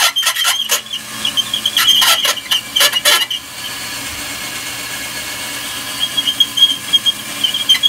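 Ryobi 18-volt cordless drill with a quarter-inch bit drilling out aluminum rivets on a window regulator. The bit squeals against the metal with short chattering catches, settles into steadier running in the middle, and squeals again near the end.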